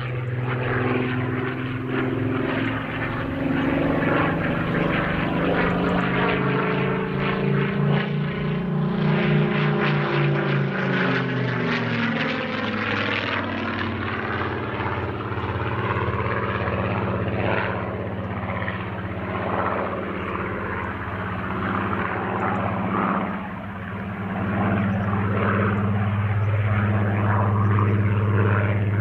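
Supermarine Spitfire's V12 piston engine running under power as the aircraft manoeuvres, a loud continuous drone whose note shifts and glides down in pitch about halfway through, then holds steady again.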